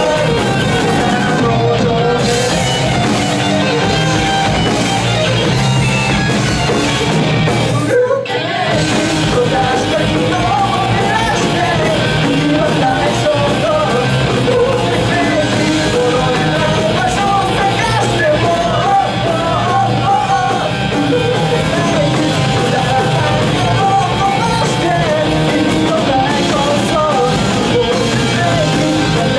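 Rock band playing live: a sung lead vocal over electric guitars, bass guitar and a drum kit, with a brief break in the music about eight seconds in.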